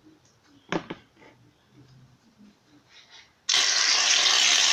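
A couple of sharp clicks about a second in, then, about 3.5 seconds in, a loud, steady hiss starts suddenly: aerosol shaving foam spraying out of the can into the slime bowl.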